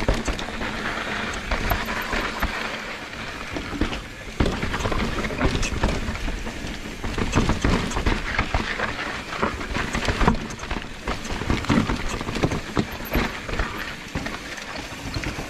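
Mountain bike riding over rough, rocky trail: a constant, irregular clatter of knocks and rattles from tyres, frame and chain hitting the ground, over a low rumble.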